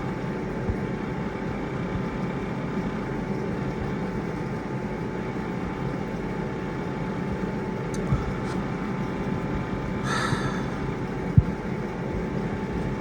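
Steady machine hum with a low drone and a few faint steady tones, broken by a couple of light knocks.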